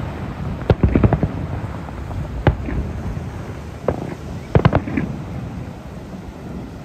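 Aerial firework shells bursting in a string of sharp bangs: a quick cluster about a second in, single bangs at about two and a half and four seconds, and another cluster near five seconds, with the bursts fading out near the end.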